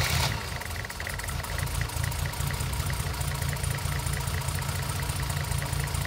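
Mercedes M110 2.8-litre twin-cam straight-six idling steadily just after starting, with a rhythmic boom in its note. It is running on a misfire: one of its six cylinders is not firing.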